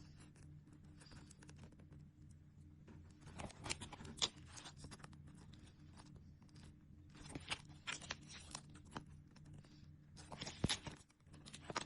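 Crinkling and rustling of plastic sticker packets and sticker sheets being handled and peeled, in a few short bursts of crackle, over a low steady hum.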